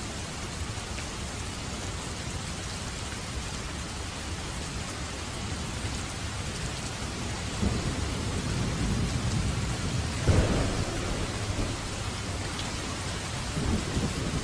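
Steady heavy rain falling, with rolls of thunder rumbling low through the second half, the strongest about ten seconds in.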